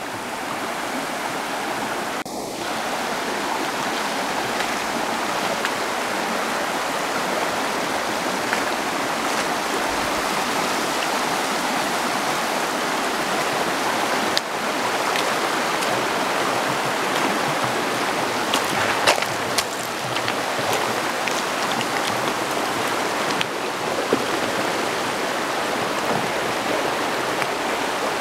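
Shallow creek rushing over flat rock ledges in small riffles: a steady splashing hiss of running water, with a few brief clicks about two-thirds of the way through.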